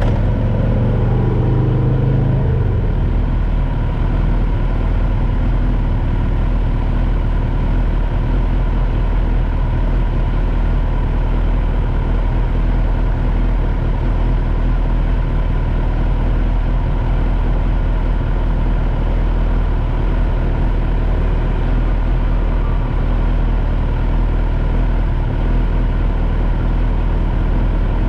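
Kawasaki Z900's inline-four engine idling steadily at a stop, running on a freshly flashed ECU. An engine note falls in pitch over the first couple of seconds, then holds even.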